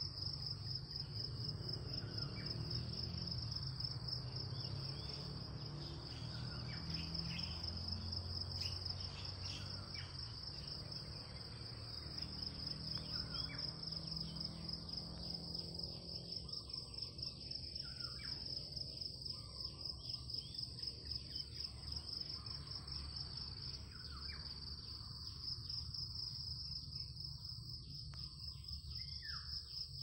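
Insects chirring in a steady, fast-pulsing high drone, with a few faint bird chirps and a low rumble that fades about halfway through.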